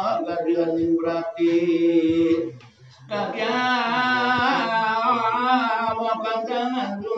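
A man chanting a recitation in a melismatic singing voice, holding long wavering notes, with a short pause for breath about halfway through before he carries on.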